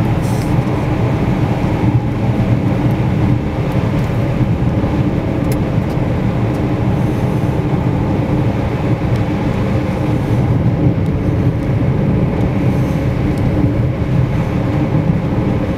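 Steady road and engine noise inside a moving car's cabin: a low engine hum under the rush of tyres on a wet, snowy highway, climbing a steep grade.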